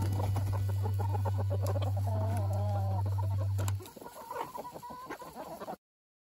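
A flock of chickens clucking and chattering over a steady low hum; the hum stops about four seconds in, leaving the clucking, and then the sound cuts off abruptly near the end.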